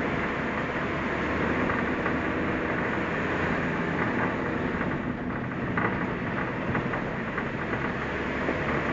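New-model Suzuki Jimny driving on a forest road: steady engine and tyre noise, with scattered light ticks and crackles about halfway through.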